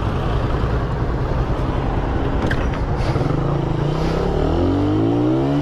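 Small motorcycle engine running under way, with road and traffic noise. Its pitch climbs over the last second as it accelerates.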